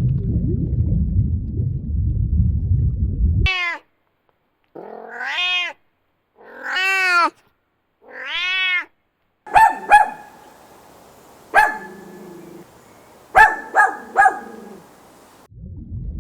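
Domestic cat meowing four times, each call rising and falling in pitch. It is preceded by a low rumbling noise and followed by a run of short, sharp calls, some in quick pairs.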